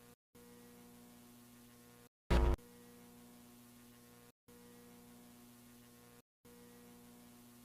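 Steady electrical hum with a buzzy stack of overtones, cutting out to silence for a moment about every two seconds. Just over two seconds in, a short loud buzz bursts through once.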